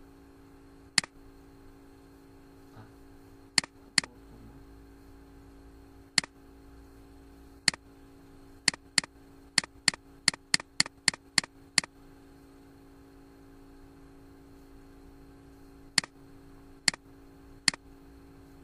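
Computer mouse clicking: scattered single clicks, a quick run of about ten clicks in the middle, then three more near the end, over a steady low hum.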